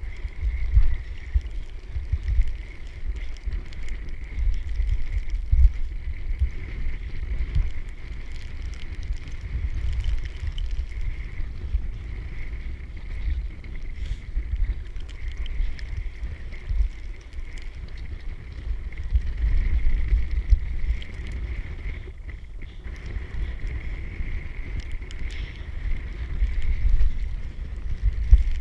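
Wind buffeting the microphone in uneven gusts, with a faint steady high hiss underneath.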